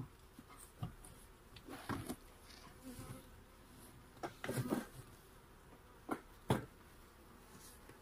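Honeybees buzzing in short passes close by, a series of separate brief buzzes rather than a steady hum, the longest and loudest about halfway through.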